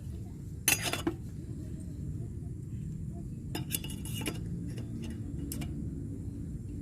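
Coffee-brewing utensils being handled: a few clinks and short rattles of metal and glass gear. The loudest rattle comes about a second in, and another cluster follows around four seconds in.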